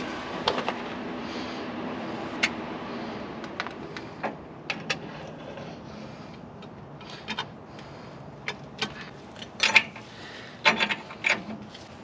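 Scattered metallic clinks and knocks as a truck wheel hub is handled and slid onto the rear axle spindle, the loudest cluster near the end.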